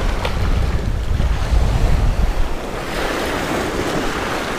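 Small surf waves washing over the shallows, with gusting wind buffeting the microphone, the wind heaviest in the first half.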